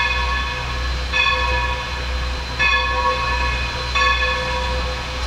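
Steam locomotive bell ringing slowly, one ringing stroke about every second and a half, over the low rumble of the standing or slowly moving 2-8-0 Consolidation steam locomotive.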